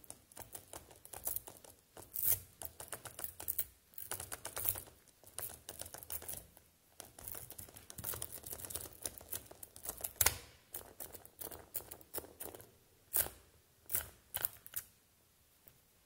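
A sheet of hundreds of small neodymium magnet balls being dragged and slid across a wooden box, giving a dense stream of metallic clicks and rattles with louder snaps now and then. It dies away shortly before the end.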